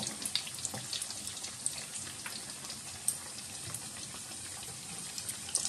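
Potato cutlets (aloo tikki) shallow-frying in hot oil: a steady sizzle with many small crackling pops, as the cutlets brown to golden.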